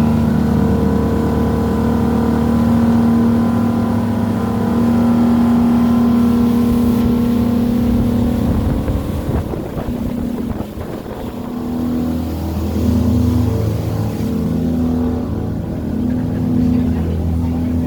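Motorboat engine running steadily, easing off about ten seconds in and then picking up again with a wavering pitch.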